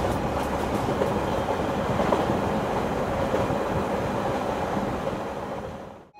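Train running on rails, heard from inside the carriage: a steady rumble with faint clicks from the wheels. It fades out about a second before the end.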